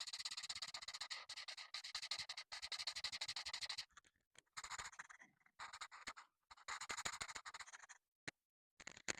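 Coloring strokes on paper: rapid back-and-forth scratching, continuous for about four seconds, then in shorter spurts with silent gaps, and two sharp clicks near the end.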